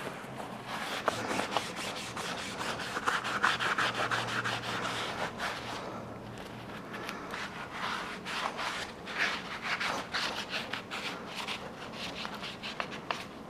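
Shop towel in gloved hands rubbing and wiping the body of a Wilton bullet vise in quick, irregular strokes, clearing off grease and grime loosened by a degreaser soak.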